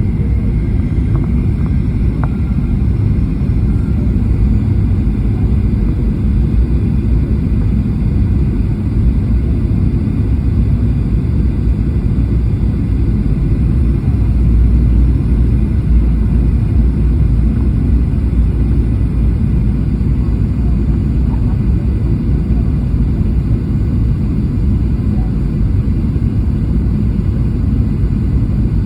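Steady low rumble of engine and airflow noise inside the cabin of a Boeing 737-800 descending to land, swelling briefly about halfway through.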